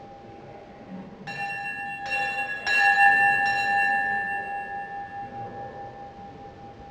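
The Eucharistic Congress bell, hung in a wooden frame, is struck four times in quick succession. The third strike is the loudest, and its clear ringing tones fade slowly away.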